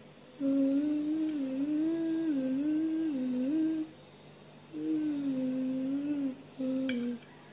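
A woman humming a slow, wavering tune in three phrases with short pauses between them, and a couple of faint clicks near the end.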